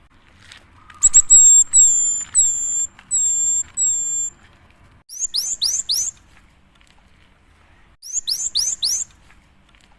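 Cinereous tit (gelatik batu) singing: a run of about five high, clear whistled notes, then two quick bursts of four rising notes each, about three seconds apart.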